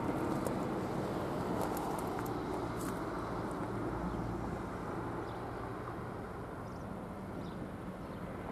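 Outdoor ambience: a steady low rumble with a few faint, short high chirps or ticks in the first three seconds.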